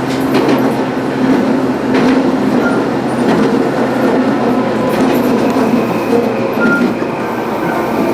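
Tobu 8000-series electric train running along the track, a steady rumble with a hum that fades out about six and a half seconds in. Brief faint wheel squeals come through near the middle and again later.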